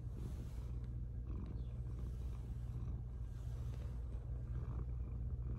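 Domestic cat purring, a low steady rumble.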